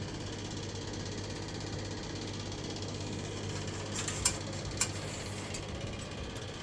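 Steady hum of running machinery, with a few sharp clicks about four and five seconds in.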